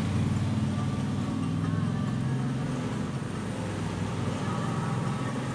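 An engine idling with a steady low rumble.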